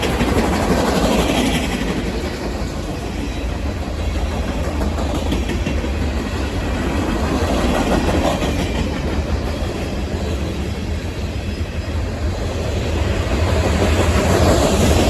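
Freight train cars rolling past with a steady rumble of steel wheels on the rails, and a rhythmic clickety-clack at times.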